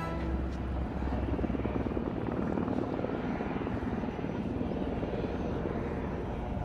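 Helicopter flying, its rotor chopping steadily.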